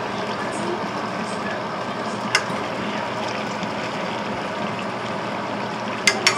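Pan of salted fish (makayabu) and vegetables simmering in oil with a steady hiss. A spoon clicks against the pan once a couple of seconds in and three times in quick succession near the end.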